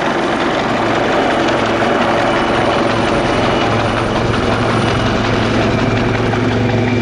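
AgustaWestland AW159 Wildcat helicopters, rotor blades chopping rapidly over the steady whine of their turbine engines, as the low aircraft comes into the hover. A low hum in the sound grows stronger about halfway through.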